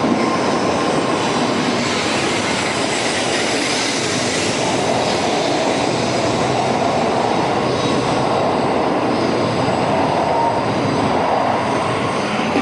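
Shinkansen bullet train running out of the station platform, a steady rush of train noise.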